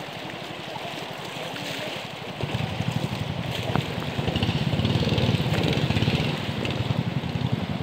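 Small boat engine running steadily over rushing river water; it gets louder about two and a half seconds in.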